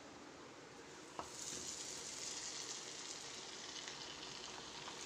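Batter-coated chicken strips deep-frying in hot oil in a kadai: a faint, steady sizzle that comes in about a second in, just after a light tap.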